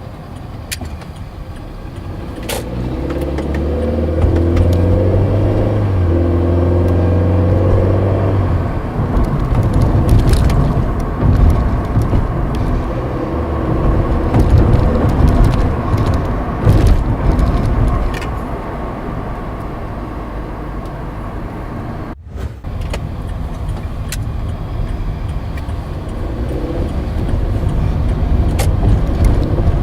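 VW Polo Sedan heard from inside the cabin: the engine note climbs in steps as the car pulls away, then tyre noise with several sharp knocks from the suspension as it rolls over uneven ground at a railway crossing. The owner puts these knocks down to the steering rack and the shock struts.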